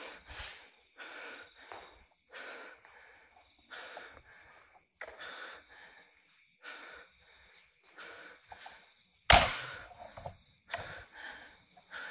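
A person breathing heavily, loud breaths coming about once a second, with a sudden loud knock or bang about nine seconds in.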